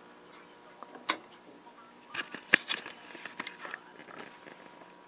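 A scatter of sharp clicks and knocks from handling, one about a second in and a cluster from about two to four seconds, the loudest about two and a half seconds in, over a faint steady high-pitched tone.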